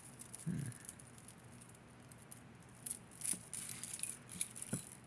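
Small pieces of jewelry rattling and clicking against each other as they are handled, with scattered light clicks and a few sharper ones about three seconds and almost five seconds in.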